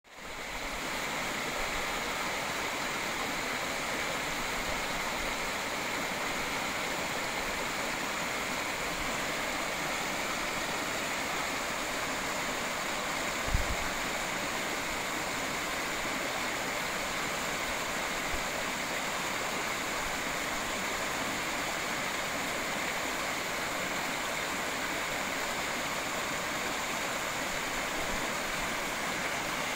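Small woodland waterfall splashing over rocks into a pool: a steady rushing of water, with one brief low bump about halfway through.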